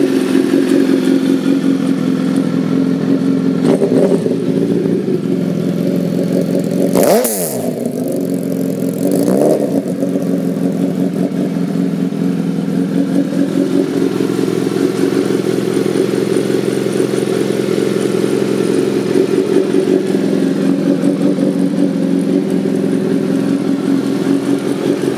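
Suzuki B-King's 1340cc inline-four engine idling steadily after start-up. Its revs briefly rise and fall a few times, most sharply about seven seconds in.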